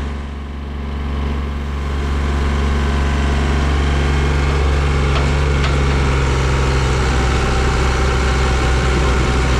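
Mahindra JIVO 365 4x4 tractor's diesel engine running hard under load as it pulls against the chained dump truck. It gets louder over the first couple of seconds, then holds a steady labouring note.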